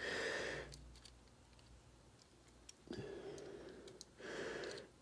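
A person breathing close to the microphone, three soft breaths, with faint light clicks in between as small steel parts are pressed into a pistol frame.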